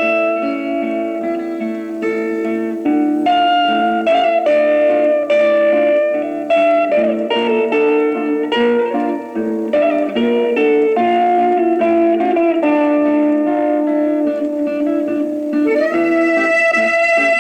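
Instrumental guitar melody on electric guitar, sustained single notes that slide between pitches over a chordal accompaniment, played back from a 1963 flexi disc (sonosheet) recording.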